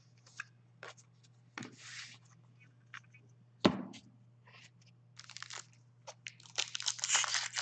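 Hockey cards being handled on a tabletop: a few light clicks and taps, and a thump about three and a half seconds in. From about five seconds on comes the crinkling and tearing of a foil Upper Deck hockey card pack being ripped open.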